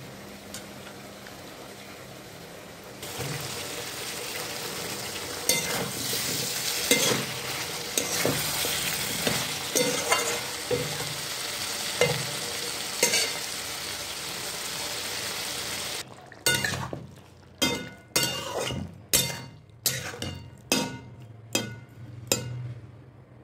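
Potato and drumstick (moringa) pieces frying in a kadhai: a steady sizzle that grows louder about three seconds in, with a spatula knocking and scraping against the pan now and then. Near the end the sizzle drops away into a run of short stirring strokes, about two a second.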